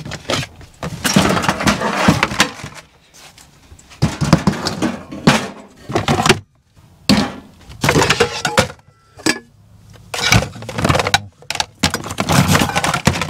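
Clattering and knocking of small hard objects being handled, moved around and set down, in bursts of several knocks with short pauses between.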